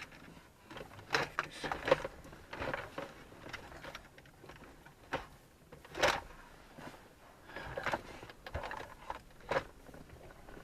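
Irregular plastic clicks, knocks and rattles from handling a car's dash trim panel and the wiring connectors behind it, with the sharpest knock about six seconds in.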